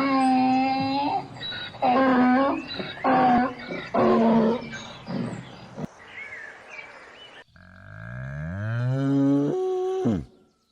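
Animal calls: four short pitched calls in the first five seconds, then a long call that rises steeply in pitch and stops abruptly near the end.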